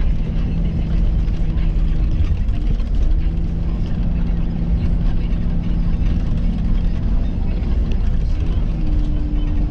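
Range Rover heard from inside the cabin while driving through snow: a steady low engine drone with a rumble of tyres and road. The engine note shifts pitch a few times and steps higher near the end.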